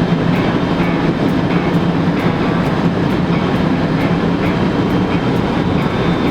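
Steady rushing noise inside a Boeing 767-300's cockpit on final approach: airflow and engine noise, with a faint regular ticking.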